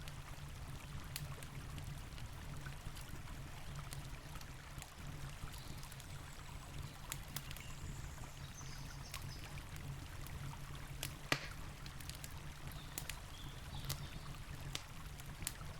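Campfire crackling with sharp, scattered pops, one louder pop about eleven seconds in, over the steady rush of a river.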